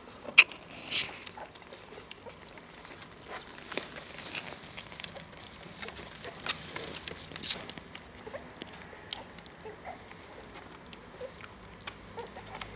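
Newborn bull terrier puppies nursing: a busy patter of small wet suckling clicks and smacks, with a few soft squeaks. A single sharp click stands out about half a second in.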